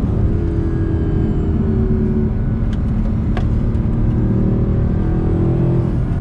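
Mercedes C63 AMG Edition 507's 6.2-litre V8 engine pulling hard on track, its revs climbing twice, with a couple of short clicks.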